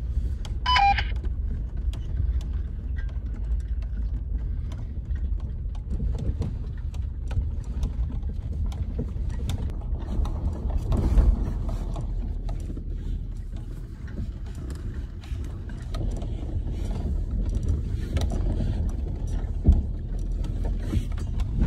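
Inside a Land Rover's cabin crawling downhill over a rocky dirt track: a steady low rumble from the drivetrain and tyres, with frequent clicks, knocks and rattles as the truck jolts over the stones, and a couple of harder thumps about halfway and near the end.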